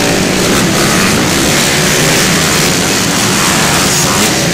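Motocross dirt bikes racing past on a dirt track, their engines revving hard in a loud, continuous engine noise that rises and falls.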